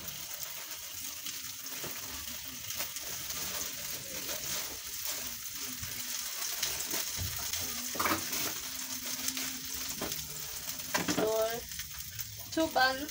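Two hot dog sausages frying in hot oil in a frying pan: a steady sizzle with scattered small crackles and pops.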